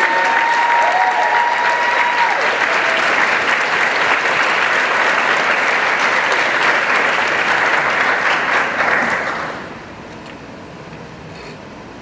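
Audience applauding steadily, with one held call rising over the clapping in the first two seconds. The applause dies away about nine and a half seconds in, leaving a low room hum.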